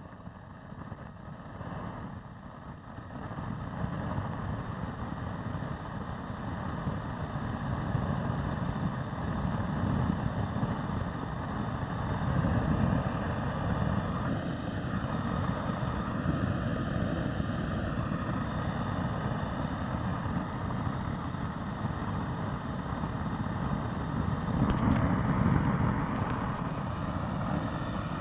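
Small forge gas burner running with a steady low roar. It builds up over the first few seconds and swells louder a few times as the gas valve at its base is worked.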